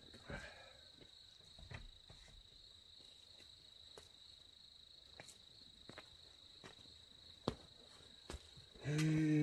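Crickets trilling steadily and faintly in the night, with a few soft clicks. Near the end a man's voice hums a low, steady note.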